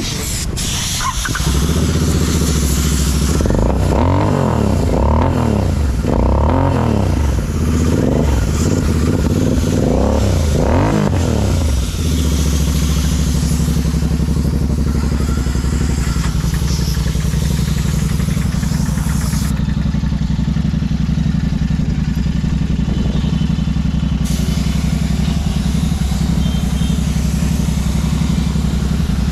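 Royal Enfield Continental GT 650's 648 cc parallel-twin engine, revved in a series of quick blips of the throttle, then settling into a steady idle.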